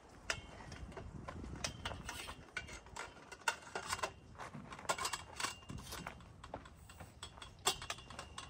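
Steel trampoline frame tubes clinking and scraping as curved top-rail sections are worked onto the leg sockets: a string of irregular sharp metal clicks and knocks, a few with a brief ring.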